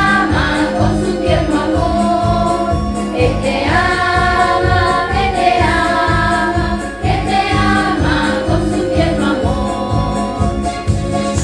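Christian children's song: a choir singing over a backing track with a steady beat.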